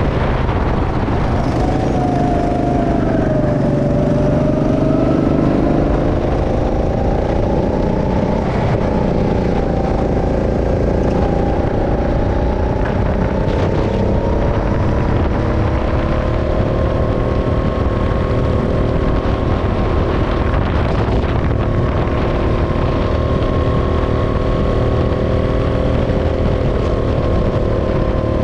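Go-kart engine heard from on board while racing. Its pitch drops low through a corner in the first few seconds, climbs steadily as it accelerates, then holds high and steady for the second half of the clip.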